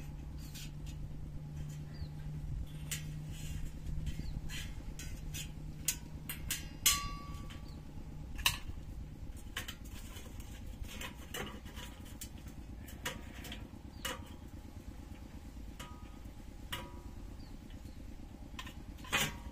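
Steady low engine-like rumble with a hum that fades out about eight seconds in. Over it come scattered light metal clicks and clinks as the welded bolt-and-nut hinge and its steel plates are handled and moved.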